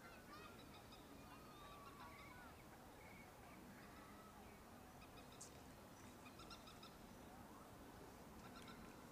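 Near silence with faint bird calls: a few gliding whistles early on, then quick series of short repeated chirps about six seconds in and again near the end.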